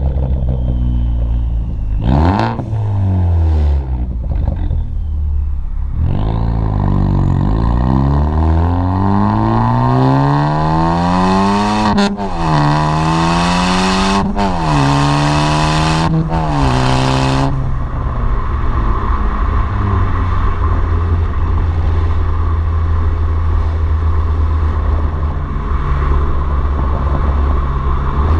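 Ford Focus ST's turbocharged 2.0-litre four-cylinder running through an exhaust with no muffler or resonator. It revs briefly, then pulls up through the gears in three rising climbs. Each shift brings a sharp burst that fits the aftermarket blow-off valve venting, before the engine settles to a steady drone.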